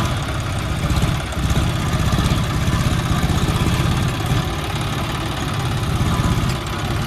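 John Deere tractor diesel engines running hard close by, a low throbbing run that swells and eases about once a second. The engines are working to free a tractor stuck deep in mud.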